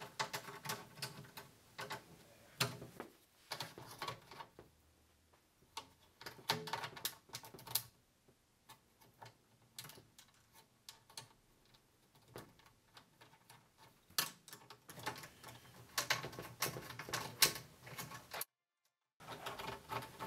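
Scattered light clicks and taps, in irregular clusters, of plastic leveler caps being fitted onto metal tub legs and a Phillips screwdriver working at the holes in the legs.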